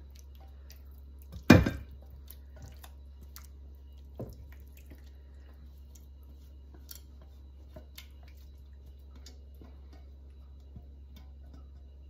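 Thick, chunky chicken pot pie filling plopping and dripping from a metal pan into a glass baking dish, with small wet clicks throughout. A loud knock comes about a second and a half in and a softer one around four seconds.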